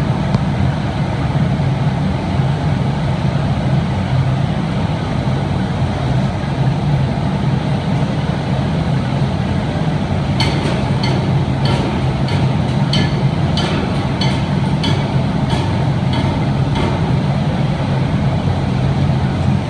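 Steady low roar of a glassworks, its furnaces and blowers running. About halfway in comes a run of sharp metallic clicks and taps lasting several seconds, as a blowpipe carrying hot glass is rolled along the steel arms of a glassblower's bench.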